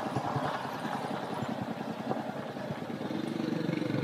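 Royal Enfield single-cylinder motorcycle engine running at low revs with a dense, even firing pulse. A steady low-pitched note joins near the end.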